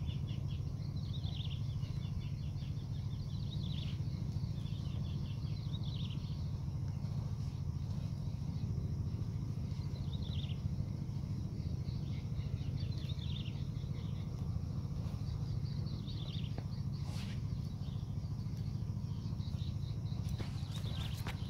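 Rural field ambience: a bird gives short falling chirps every couple of seconds over a steady low rumble.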